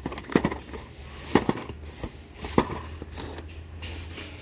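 Light clicks and knocks of carded Hot Wheels cars and their cardboard box being handled and sorted, a handful of separate knocks over a steady low hum.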